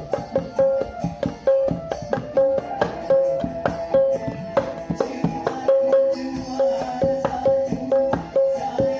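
An empty paint can beaten by hand like a kendang drum in a fast, steady rhythm, with a repeated ringing higher stroke and a deeper stroke joining about halfway through.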